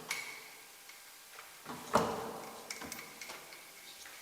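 A large drawer being handled: a click, then a sharp knock about two seconds in as it is pushed shut, followed by a few lighter clicks.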